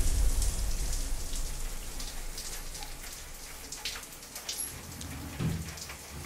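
Rain pattering steadily, while the low tail of a music cue fades out over the first couple of seconds.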